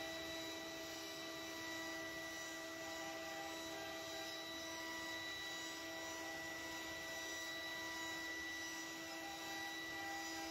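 CNC wood router spindle running at constant speed with a steady high whine while its bit routes grooves into a board.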